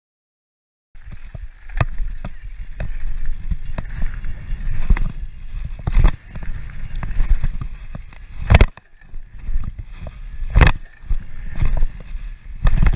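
After a brief silence, a mountain bike ridden fast over dirt, heard from a camera on the rider: a steady low rumble of knobby tyres on the trail and wind on the microphone. Sharp knocks and rattles from the bike run through it, the two loudest coming after the middle.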